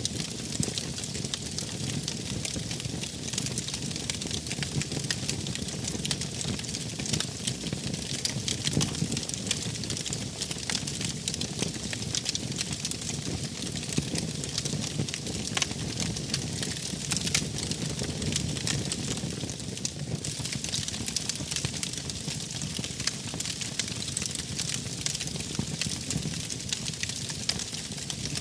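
Wood fire burning, with many small sharp crackles and pops over a steady low rumble.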